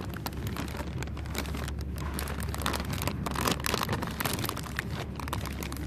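Clear plastic sleeve around a potted orchid crinkling and rustling as a hand pushes into it: a dense run of crackles, busiest in the middle, over a steady low hum.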